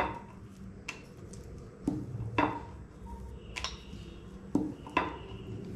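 Wooden rolling pin on a round wooden rolling board as dough is rolled out: a series of sharp wooden knocks and clacks at irregular intervals, about one every half second to a second. A steady low hum runs underneath.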